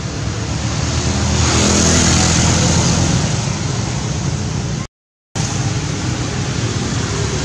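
Motor vehicle passing on a nearby road: a steady engine and tyre rumble swelling to its loudest about two seconds in, then easing. The sound cuts out completely for about half a second a little past the middle.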